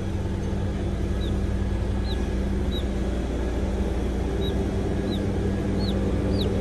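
A steady low mechanical hum, with short high chirps repeating about once a second over it.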